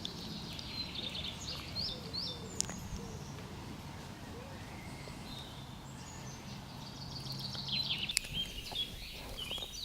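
Birds singing with quick repeated chirps over a faint steady outdoor background; the song comes in two spells, at the start and again in the last few seconds.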